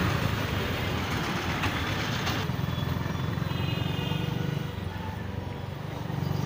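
Engine of the vehicle carrying the camera running steadily while moving along a town road, with road and traffic noise around it. It eases off slightly about five seconds in, then picks up again.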